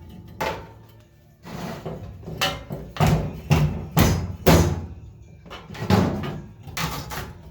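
Repeated heavy blows, about two a second with a short pause near the middle, as a 2x4 wedged in a steel headache rack is knocked loose.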